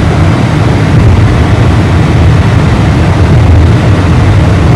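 Steady, loud low rumble of a car driving at highway speed: road and wind noise, with no change in pace.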